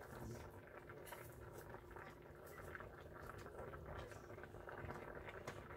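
Pot of fish and cabbage broth at a boil, bubbling faintly with soft irregular pops and patter.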